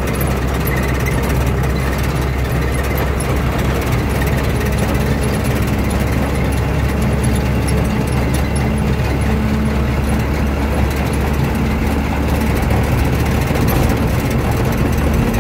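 A truck's engine and road noise heard from on board while the truck is driving: a steady low drone with a faint steady hum above it.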